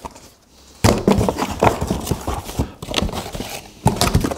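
Hands rummaging inside a cardboard box, with irregular knocks, thumps and rustles as packed kit parts are shifted about, starting about a second in.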